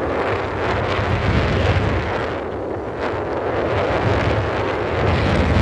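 Wind rushing and buffeting on the microphone of a moving 150 cc motorcycle, with the bike's engine running underneath, swelling and easing in strength.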